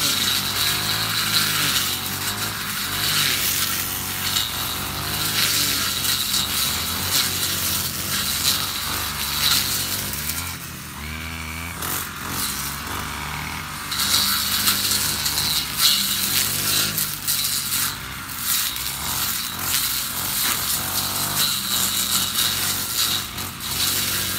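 Honda GX50 four-stroke engine of a UMK450T brushcutter running at high revs as its two-tooth blade cuts tall grass. About ten seconds in it drops to a lower, quieter note for a few seconds, then revs back up and keeps cutting.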